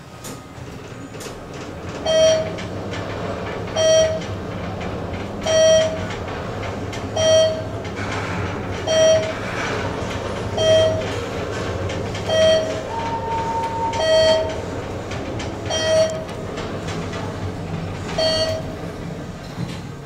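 ThyssenKrupp elevator car descending, its ride giving a steady low rumble, while a short pitched beep repeats at an even pace about every second and a half to two seconds, about ten times.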